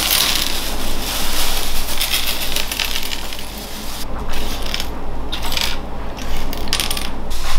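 Small shards of broken drinking glass tinkling and clinking as they are poured out and pushed around on a dresser top, dense at first and then in short scatters with brief pauses.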